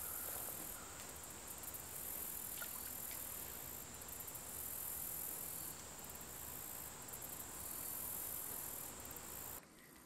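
Insects in a steady high-pitched chorus that swells in short pulses every second or two, over a soft outdoor hiss. It drops away just before the end.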